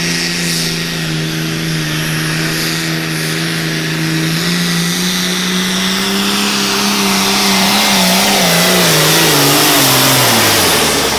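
Modified International Harvester diesel pulling tractor at full throttle, dragging the weight sled under heavy load. The engine note climbs slowly and is loudest as the tractor passes, then wavers and falls away near the end.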